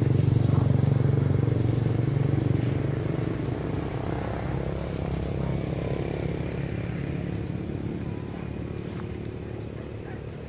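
A motor vehicle engine running, loudest at first and fading gradually over several seconds.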